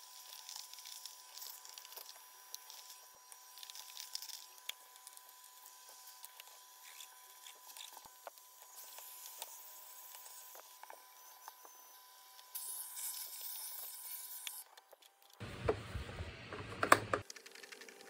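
Faint clicks and rustles of the plastic parts of a Zanussi canister vacuum cleaner being handled: the dust-bag compartment, hose and filter. Near the end there are louder knocks and a sharp click as the plastic body is turned over.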